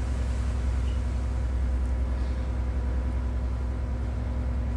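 A fishing boat's engine running with a steady low drone.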